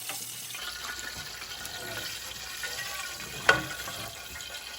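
Flour-coated chicken pieces frying in hot oil with a steady sizzle. One sharp knock, the loudest sound, comes about three and a half seconds in.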